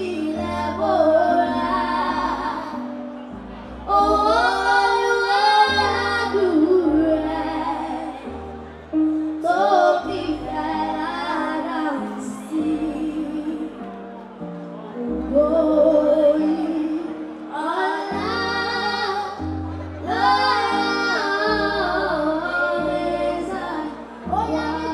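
Two young girls singing into microphones in alternating phrases over an amplified musical backing whose bass line steps to a new note every second or two.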